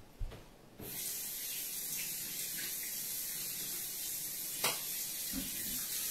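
Kitchen tap running in a steady stream, turned on about a second in, with a short knock near the middle.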